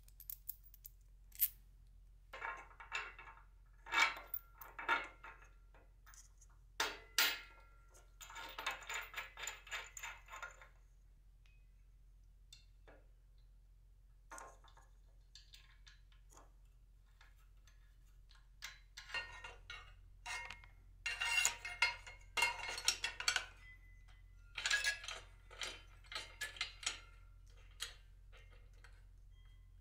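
Steel bolts, washers and pulley hardware clinking and rattling in short scattered bursts as they are handled and fitted onto a steel bracket by hand, with a quieter pause around the middle.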